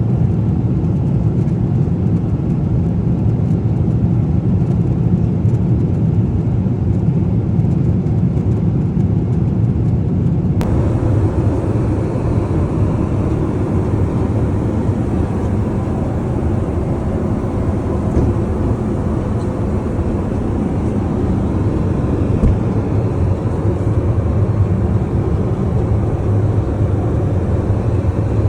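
Steady jet-engine noise and low rumble of a Boeing 777-300ER's GE90 engines heard inside the cabin. The sound changes abruptly about ten seconds in, turning a little brighter.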